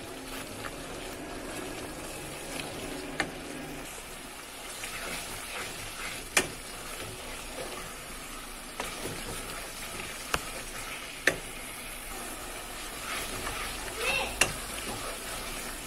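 Thick spice paste frying with a soft, steady sizzle in a pot while being stirred with a wooden spatula, which knocks sharply against the pot a few times. This is the masala being fried down (kashano) over medium heat for a curry.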